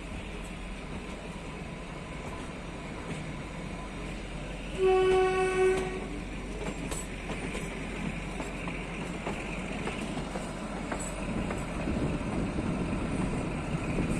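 Narrow-gauge Kalka–Shimla toy train running, with its horn sounding once for about a second, about five seconds in, over the steady rumble of the train. A few faint clicks follow later.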